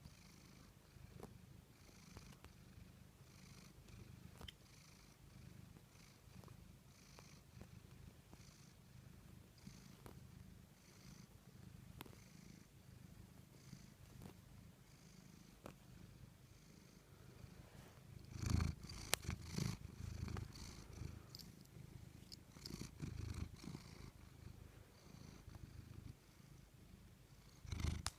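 A dog's low, rumbling snoring breaths, about one a second. Louder shuffling and knocks come about two-thirds of the way in, and again briefly near the end.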